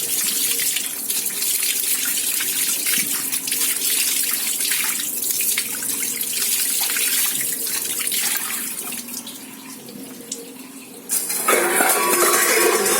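Water running from a tap as a handful of lemongrass and tulsi leaves are rinsed under it, a steady splashing hiss that eases off about nine seconds in. Near the end a sudden louder splash of water lasts about two seconds.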